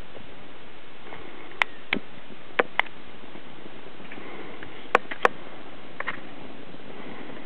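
Sharp crackles and clicks, about eight spread out, the loudest two close together about five seconds in, as a paperback book catches fire from a lighter and burns, over a steady background hiss.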